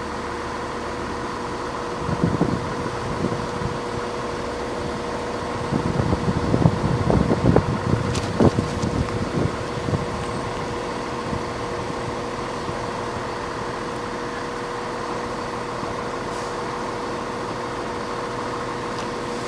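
Class 170 Turbostar diesel multiple unit idling at the platform: a steady hum with a constant tone. A few louder irregular rumbles and knocks come about two seconds in and again between about six and ten seconds.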